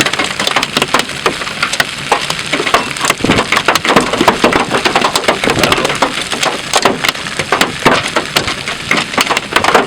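Large hailstones hammering a vehicle's body and glass in a dense, irregular barrage of loud, sharp cracks and knocks.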